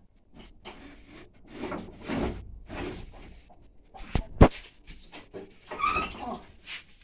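Wooden boards and frames being shifted and stacked, scraping and clattering on each other and the floor, with two sharp wooden knocks about four seconds in.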